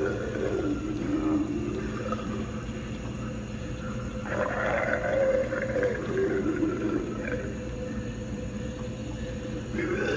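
Halloween animatronic of a moss-covered forest creature playing low, drawn-out monster vocal sounds that slide up and down in pitch, with a louder one starting about four seconds in, over a steady low hum.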